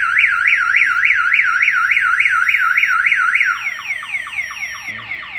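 Viper aftermarket car alarm siren sounding, set off by a door opened while the system is armed. It starts as a fast rising-and-falling warble, about five sweeps a second. About three and a half seconds in it changes to a slower run of falling chirps, a little quieter.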